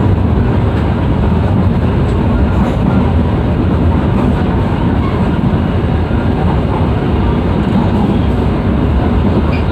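Steady low rumble of a moving passenger train heard from inside an executive coach: wheels running on the rails and running noise carried into the cabin.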